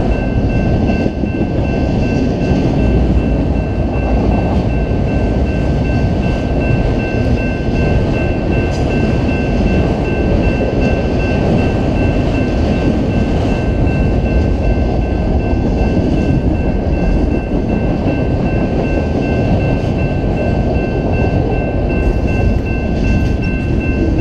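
Freight train of boxcars and autorack cars rolling past close by: a loud, steady rumble and rattle of wheels and cars on the rails, with a steady high-pitched tone above it.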